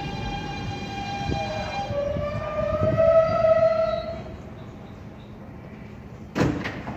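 R160 subway train braking into a station: the electric whine of its traction motors sounds as several steady tones over a rumble, shifts in pitch, and fades out about four seconds in as the train stops. About six and a half seconds in there is one short, sharp burst of noise.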